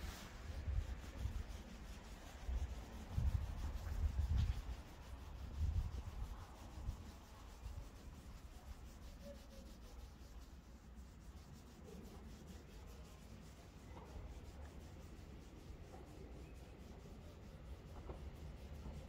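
Wind buffeting the microphone in low, uneven gusts for the first six seconds or so, then a faint, steady outdoor hush with a few soft clicks.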